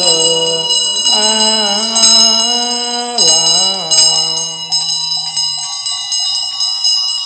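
A monk chanting in long, held notes over a Buddhist handbell that is being rung rapidly. The chant ends about two-thirds of the way through, while the bell's ringing carries on and begins to fade.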